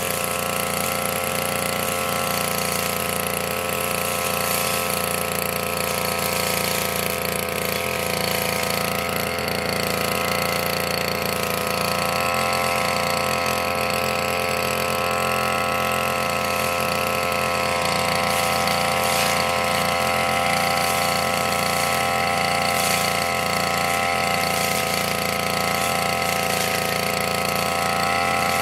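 Engine of a RYU brush cutter running steadily with an even, unchanging pitch as it is used to cut grass.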